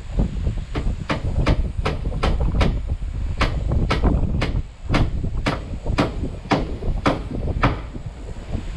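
Hammer blows in a steady run, about two to three a second, driving nails to fix corrugated tin sheets as a wall, over a continuous low rumble.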